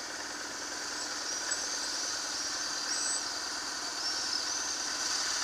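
BMW R1100GS flat-twin motorcycle engine running at low speed and idling as the bike pulls up, growing slightly louder toward the end. Several faint, high chirps sound over it.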